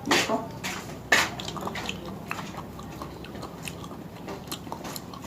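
A person chewing raw clams dressed in vinegar, up close, with two sharp clicks near the start and about a second in, then small wet ticks of chewing.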